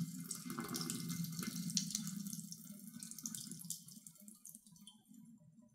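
Cloudy rinse water pouring from a plastic butter-maker jar into a kitchen sink as the leftover buttermilk is drained off, a thin stream splashing steadily and then tapering to scattered drips about four seconds in.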